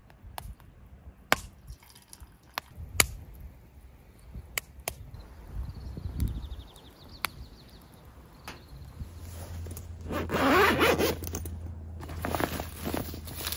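Camp gear being handled: scattered sharp clicks and knocks, the loudest about one and three seconds in, then a rasping scrape lasting over a second about ten seconds in, over a low hum.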